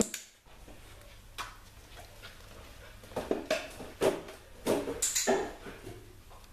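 An Australian Shepherd puppy's paws knocking and scraping against a row of wooden drawers on a tile floor as it steps through them. There are scattered knocks, with a cluster of wooden clunks about three to five seconds in.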